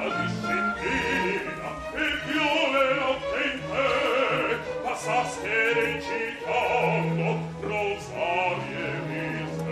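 Opera sung live on stage: a bass soloist and a chorus singing with vibrato over orchestral accompaniment.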